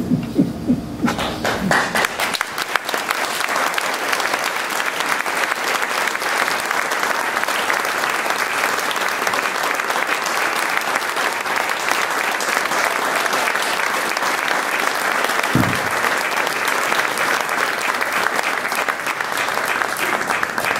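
Audience applauding, a dense patter of many hands clapping that starts about a second in and keeps going steadily.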